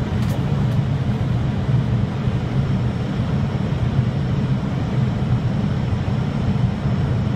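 Airliner on its landing descent: steady engine and airflow drone, a low hum with an even hiss over it.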